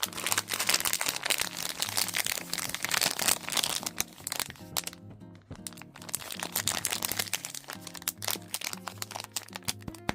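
Packaging being crinkled and crackled as it is handled and opened, densest in the first few seconds, then sparser crackles and clicks after a short lull. Background acoustic guitar music plays underneath.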